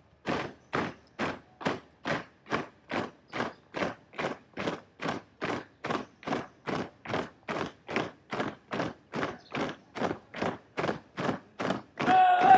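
Boots of a squad marching in step, striking the ground together about twice a second in a steady rhythm. A loud shouted call starts near the end.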